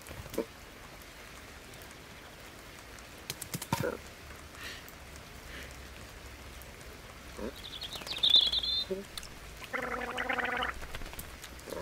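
Cartoon foley of steady rain falling, with a few short, soft cat vocal noises early on. A small bird chirps about eight seconds in, followed by a longer pitched cat vocal noise lasting most of a second.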